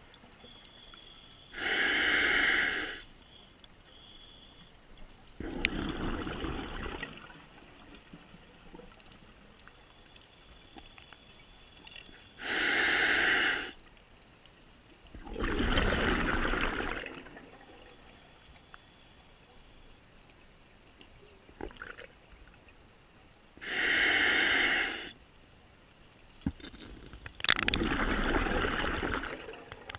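Scuba diver breathing through a regulator underwater, three slow breaths about eleven seconds apart. Each breath is a short hiss as the diver inhales through the regulator, followed a few seconds later by a longer, deeper rush of exhaled bubbles.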